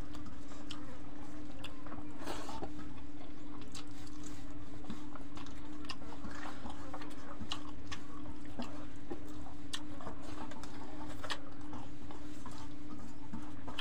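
Two people eating rice and curry by hand from steel plates: chewing and lip smacks, with scattered light clicks of fingers on the plates, over a steady low hum.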